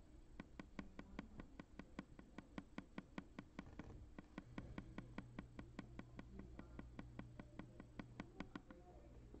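Computer keyboard being typed on: quick, faint key clicks about five or six a second, stopping shortly before the end, over a low steady hum.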